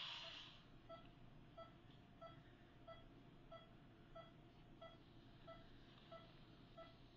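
A surgical drill handpiece stops running about half a second in. After that comes a faint, short electronic beep repeating evenly about every two-thirds of a second (about 90 a minute), the pulse-synchronised tone of a patient's pulse oximeter monitor.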